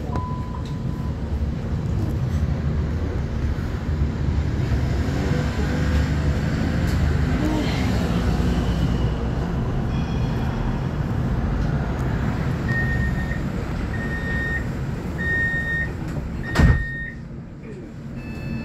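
Steady low rumble of a public-transport vehicle, then a door-closing warning: four evenly spaced high beeps, followed by the doors shutting with a loud thump.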